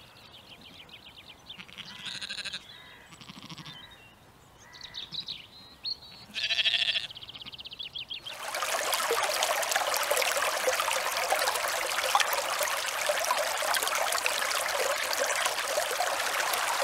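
Sheep bleating several times, the loudest call about two-thirds of the way through the first half. About halfway through the sound switches to a shallow stream running over stones, a steady rush of water.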